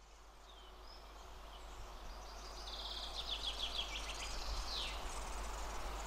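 Woodland birdsong fading in: a few short high chirps, then a quick run of sharp high notes about three seconds in and a falling note near five seconds, over a low steady rumble.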